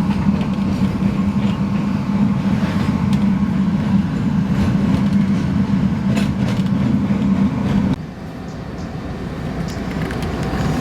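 Train riding on the rails, a steady low hum with scattered clicks and rattles. About eight seconds in, the hum cuts off suddenly and the noise drops, then slowly builds again.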